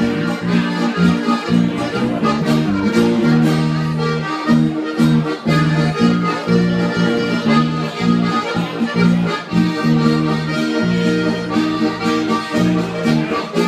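Live folk music from a small band led by two accordions playing together, with a steady beat.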